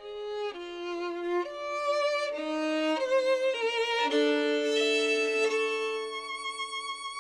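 Instrumental music: two melody lines with vibrato, notes changing about twice a second, settling into a long held chord that fades out near the end.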